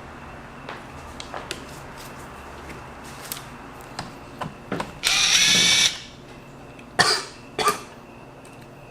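Power drill run as a screwdriver, whining steadily for about a second about five seconds in while driving out a laptop case screw. Short clicks and knocks of handling parts come before it, and two sharper knocks follow.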